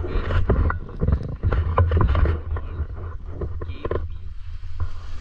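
Wind buffeting a handheld action camera's microphone as a strong, uneven low rumble, with irregular knocks and rustles of handling, busiest in the first couple of seconds.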